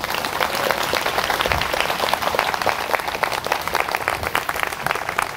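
Audience applauding, many hands clapping densely and steadily.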